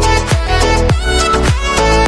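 Background music with a steady beat of about two low thumps a second under a sustained melody.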